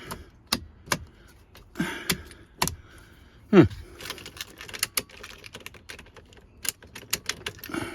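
Irregular sharp clicks and light rattles of plastic parts and a key ring being handled while the ignition switch and its wiring harnesses are refitted in the steering column. A short falling vocal sound comes about three and a half seconds in, the loudest moment.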